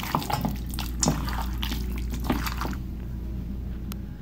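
Wet squelching of a hand kneading raw chicken pieces in a spice-powder marinade in a steel bowl, in quick irregular squishes that stop about two-thirds of the way through. A steady low hum runs underneath.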